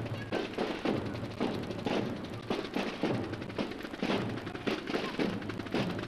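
Marching band drums beating a plain walking cadence, roughly two strokes a second, with no cornets playing.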